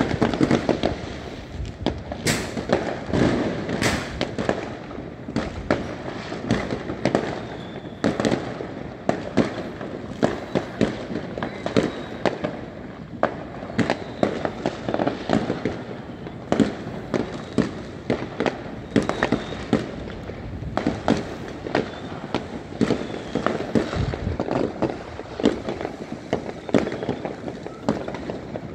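Fireworks going off in many places at once: a dense, irregular run of bangs and pops, some louder than others, with no pause.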